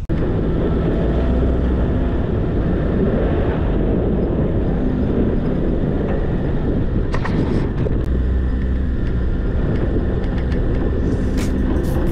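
Suzuki Jimny driving on a snow-packed street, heard from inside the cabin: steady engine and tyre rumble, with a few short clicks about seven and eight seconds in.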